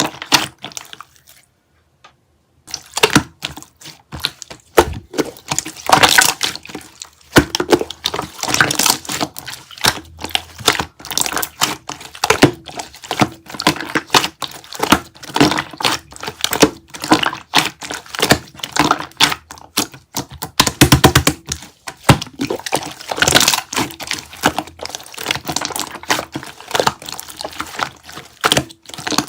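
Close-miked crackling and crunching: rapid runs of sharp clicks and cracks with some wetter, sticky-sounding stretches, pausing briefly near the start.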